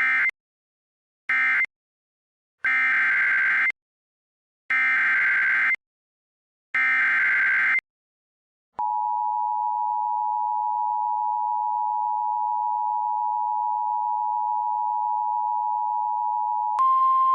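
Emergency Alert System data bursts and tones: two short end-of-message bursts, then three roughly one-second SAME header bursts of buzzy two-pitch data, then the steady two-tone EAS attention signal for about eight seconds. Just before the end it switches to a single slightly higher steady tone, the NOAA Weather Radio 1050 Hz alert tone.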